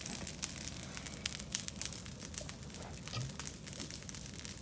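Wood fire crackling, with a dense, irregular run of sharp pops and snaps.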